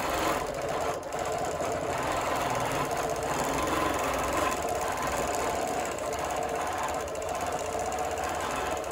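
Bernina longarm quilting machine stitching steadily, its needle going up and down in a rapid, even rhythm as it free-motion quilts through the quilt layers.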